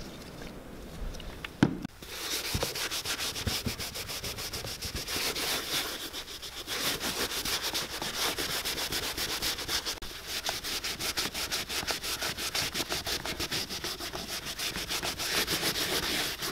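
A cloth rubbing briskly over the leather of an elephant-hide cowboy boot, working in a conditioning cream with quick, even back-and-forth strokes, several a second. The strokes start about two seconds in, just after a single sharp click.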